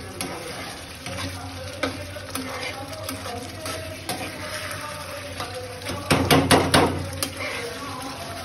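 Metal spatula stirring thick curry in a frying pan, scraping and clinking against the pan, with a quick run of several loud knocks about six seconds in.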